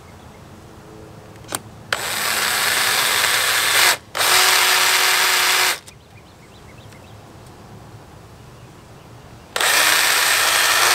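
Cordless drill pre-drilling screw holes through a paper template into the side of an RV, running in three bursts of about two seconds each. The first burst grows louder as it goes, and the last starts near the end.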